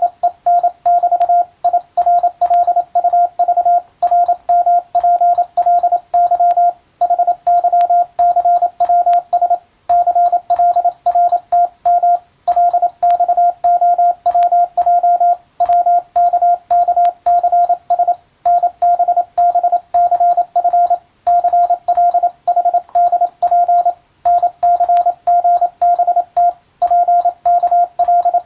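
Morse code (CW) as a single steady beep of about 700 Hz, keyed fast in continuous dots and dashes: English-text Morse code practice. Short pauses come about every three seconds between groups, with faint clicks on the keying.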